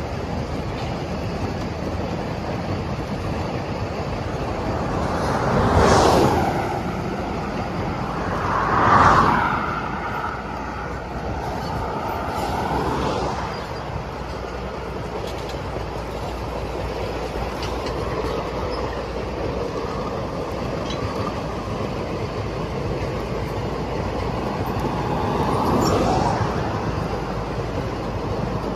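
Loaded sugarcane bins of a narrow-gauge cane train rolling past in a long rake: a steady rumble and clatter of steel wheels on rail. It swells louder a few times, with a thin wheel squeal about ten seconds in.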